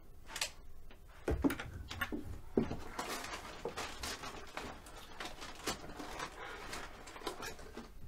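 Someone rummaging at a wooden desk: scattered small knocks, clicks and rustles of drawers and objects being moved and handled.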